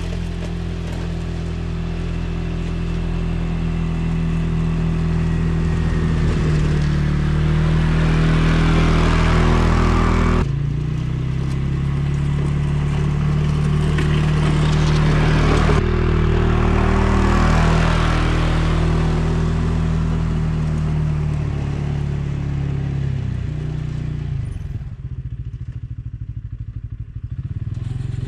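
ATV engine running while it pushes a snow plow blade, its pitch stepping up and down as the revs change, with an abrupt shift about ten seconds in. Over it is a hiss of snow being scraped and pushed by the blade. Near the end the engine eases off and the scraping fades.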